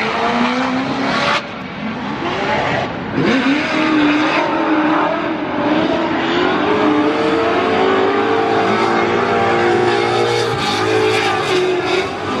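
Drift cars at full throttle on track: engines revving high, the pitch climbing and falling as they slide through the corners, over a steady rush of spinning, squealing tyres. The engine note drops back briefly about a second and a half in and again near the end.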